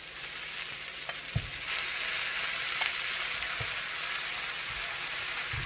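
Boiled pork spare ribs sizzling in hot oil with sautéed garlic, onions and ginger, a steady frying hiss that grows louder about a second and a half in. A couple of soft low knocks from the pan or utensil.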